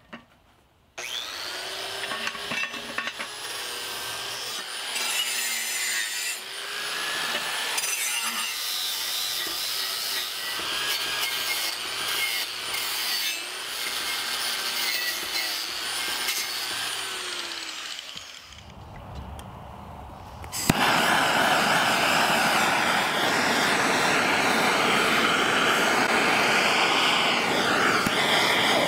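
Handheld angle grinder working over the face of an anvil, its whine wavering up and down in pitch as it is pressed on and eased off. About 21 s in, after a brief lull, a hand torch is lit with a pop and then burns with a steady, loud hiss.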